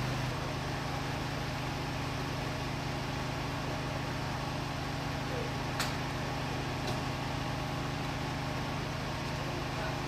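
Steady low mechanical hum of an engine running at constant speed, with a short sharp click about six seconds in.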